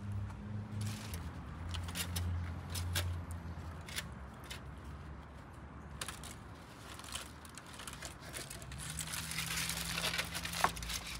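Light crinkling, scattered clicks and scrapes of a spit-roasted nutria being handled and carved on foil and a plate, over a low steady hum, with one sharp click near the end.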